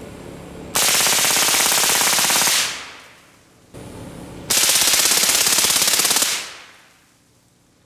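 Suppressed full-auto AR-15 firing two long bursts of rapid shots, each about two seconds long, the first about a second in and the second in the middle, each trailing off into a fading echo.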